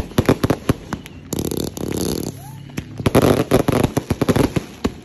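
A Warpath 260-shot firework cake firing a rapid volley of shots and bangs. About a second and a half in there is a second-long rush of noise, and about three seconds in comes a dense run of bangs, which thins out shortly before the end.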